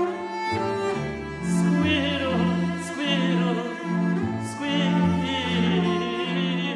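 Classical vocal music: a tenor singing with vibrato over cellos, the cellos playing a low line that moves to a new note about every half second.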